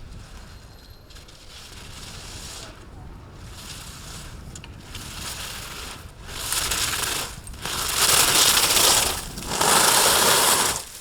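Ski edges scraping across hard, icy snow through a run of turns: three long, loud hisses about a second and a half apart in the second half, over a steady low rumble.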